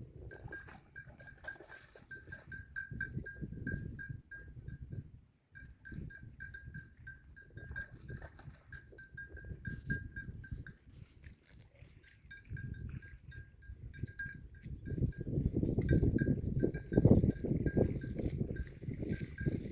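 A bell worn by a water buffalo clinks over and over as the animal moves its head, stopping briefly twice. Under it runs a low, uneven rustling that grows louder near the end.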